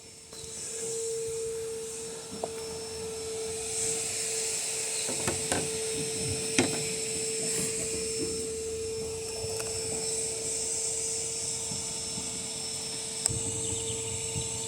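Electrolux LTC 10 top-load washing machine spinning, its transmission giving a steady whine with a few light clicks about five to seven seconds in. The owner takes the noise for a fault inside the transmission, such as a bearing turning loose in its housing, and not at the shaft seal.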